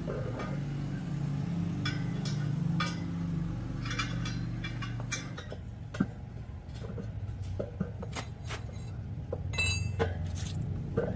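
Light metallic clinks and taps, scattered irregularly, over a steady low mechanical hum.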